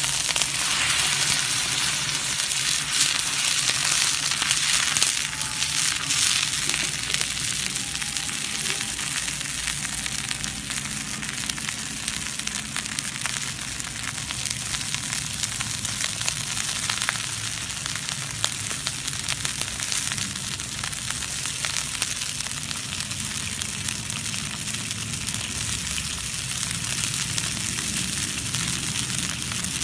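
Sauce sizzling in a pan over an open wood fire: a steady hiss full of fine crackles, a little louder in the first few seconds.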